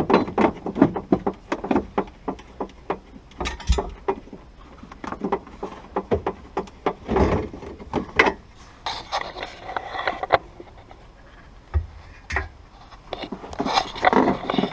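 Irregular clicks, knocks and rubbing from hand work on car trim and fasteners, with a faster run of clicks near the start.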